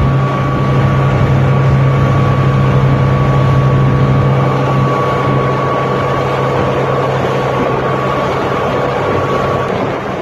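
Motorboat engine running at towing speed, a steady drone with a strong low hum that eases a little about halfway through, over the rush of water in the boat's wake.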